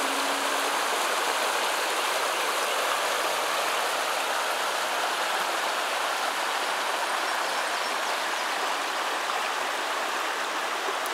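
Shallow creek water rushing over rocks: a steady wash of flowing water.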